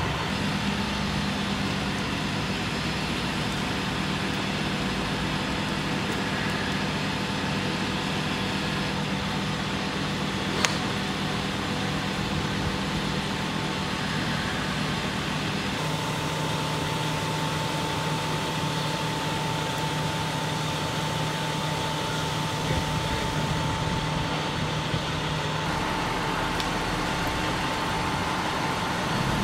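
Steady low idling of truck engines, with a constant hum and one sharp click about ten seconds in.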